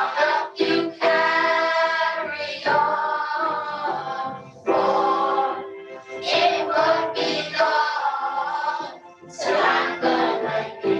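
A class of children singing a song together in unison over an accompanying backing track, in phrases with short breaths between them.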